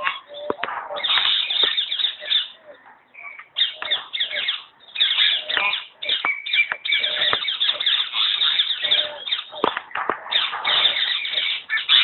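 Common hill myna calling: a run of loud, harsh screeches and squawks with a brief whistle a little after the middle, broken by short pauses.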